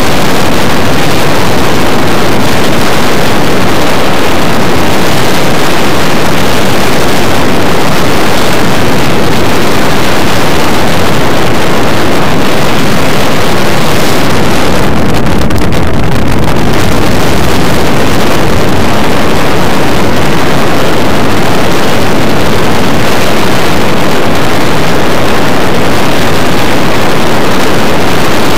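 Loud, steady rush of airflow buffeting the microphone of a camera mounted on a hang glider's wing in flight, with a brief dip about halfway through.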